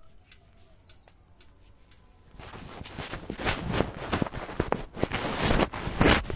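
A smartphone being handled close to its own microphone: fingers and fabric rubbing and knocking on it, starting suddenly about two and a half seconds in after a few faint clicks.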